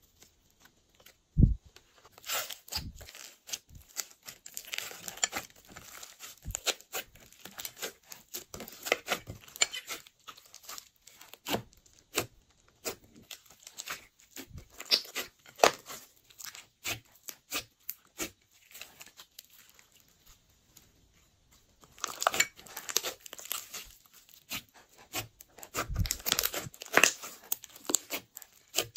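Slime being squeezed, stretched and pressed by hand, making dense irregular crackling and popping clicks as air pockets burst. There is one thump about a second and a half in, a brief lull about two-thirds of the way through, then thick crackling again as the slime is pressed down into a glass dish.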